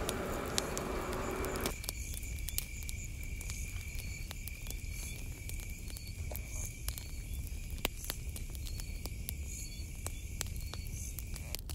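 A single insect trilling steadily at a high, even pitch, over scattered sharp crackles from a wood bonfire. The trill cuts off abruptly near the end.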